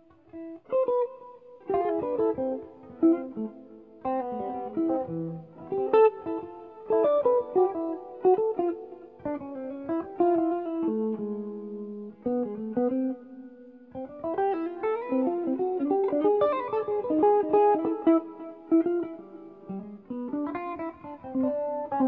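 Two jazz guitars playing a duet, their separate melodic lines interweaving in counterpoint as a run of plucked notes.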